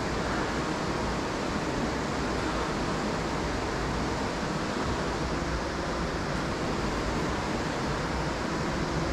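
Steady, even rush of whitewater from the Youghiogheny River's Dartmouth Rapids.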